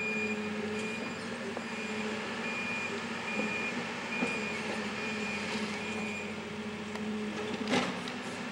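Backhoe loader's diesel engine running with its backup alarm giving regular short high beeps as it reverses; the beeping stops about six seconds in. A single sharp knock near the end.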